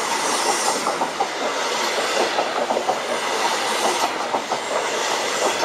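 East Coast High Speed Train (InterCity 125) Mark 3 coaches passing close by, a steady rushing rumble with the wheels clicking over the rail joints.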